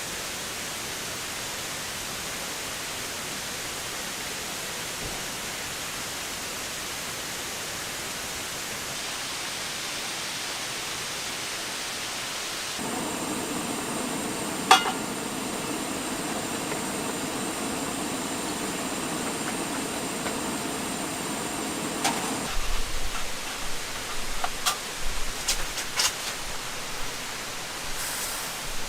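Steady hiss of rain. About halfway through it turns fuller and lower-pitched for several seconds, with one sharp click, then thins back to a hiss with scattered knocks and clicks near the end.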